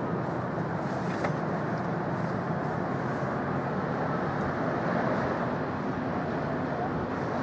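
Steady rumble of a locomotive-hauled passenger train approaching along a railway viaduct, blended with distant city traffic, growing slightly louder towards the end.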